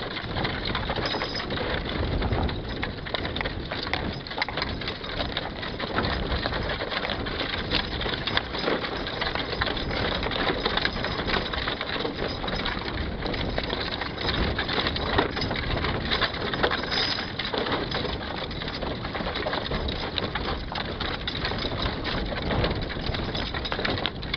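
Horse-drawn wagon rolling along a gravel road: a steady crunching and rattling of the wheels over the stones, dotted with small clicks, along with the walking draft horse's hooves on the gravel.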